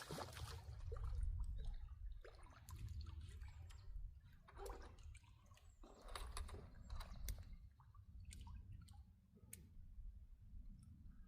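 Small splashes and drips of water with scattered light clicks, over a steady low rumble. The splashes come thicker in the first half and thin out later.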